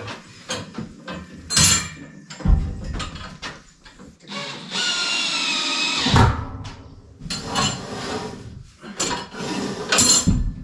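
Knocks and clanks of orange steel scaffolding being put together and handled, with a high whirring or squealing sound lasting about a second and a half near the middle.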